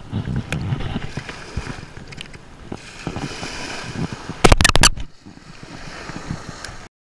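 Shallow surf washing around a wading angler's legs, with wind on the microphone. About four and a half seconds in, a quick run of loud splashing slaps as a summer flounder is lifted from the water by hand; the sound cuts off suddenly near the end.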